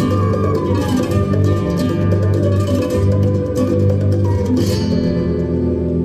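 Oriental flamenco dance music with plucked guitar over a deep, recurring bass note; held notes come in about five seconds in.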